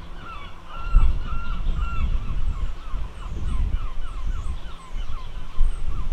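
A bird calls over and over in short honking notes, about two to three a second. Beneath them is a low rumble from the approaching ScotRail Class 170 Turbostar diesel multiple unit, which grows loud about a second in.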